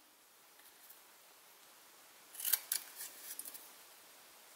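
Scissors cutting paper: a few short snips close together about two and a half seconds in, cutting a tail into a paper banner.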